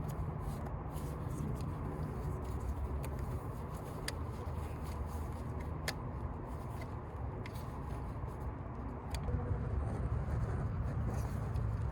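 A few light, sharp clicks and knocks of plastic engine-bay parts being handled and fitted, over a steady low background rumble.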